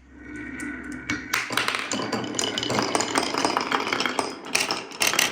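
Marbles rolling and clattering down a wooden marble run track, a dense run of quick clicks and taps that starts about a second in.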